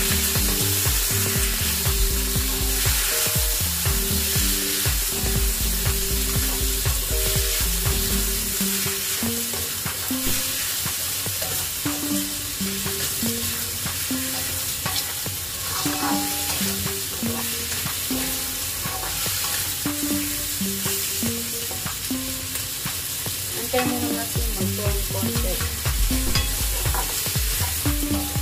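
Chicken wings sizzling as they fry with garlic and onion in a wok, stirred and scraped around with a spatula. A background music melody plays underneath, with a low beat at the start and again near the end.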